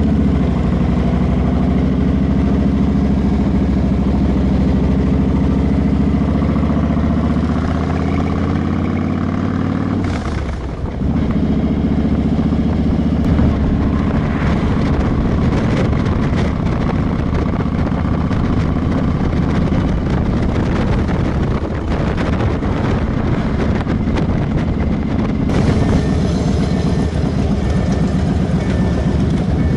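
Motorcycle engine running steadily at road speed, heard up close from the bike itself, with wind rushing and buffeting over the microphone. The sound dips briefly about ten seconds in.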